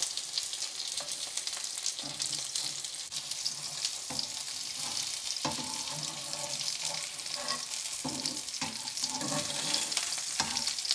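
Breaded chicken goujons sizzling and crackling in hot olive oil in a frying pan. Metal tongs knock and scrape against the pan several times as the pieces are turned over.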